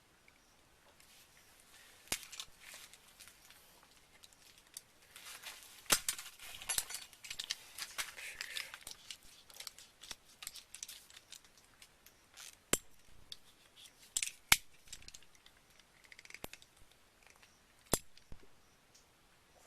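Small metal pieces being worked with a hand tool: scattered sharp clicks and snips with light rattling and rustling between them. The loudest snaps come about six seconds in and near fifteen seconds.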